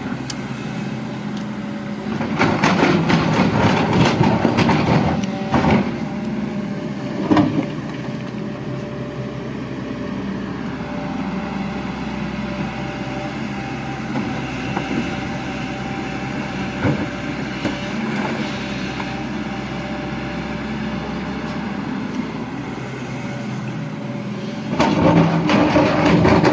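Diesel engine of a JCB JS215 excavator running steadily, growing louder for a few seconds about two seconds in and again near the end as it works under load, with a few sharp knocks.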